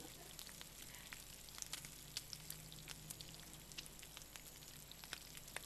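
Faint sizzle of food frying in a pan: a quiet hiss with scattered small pops and crackles.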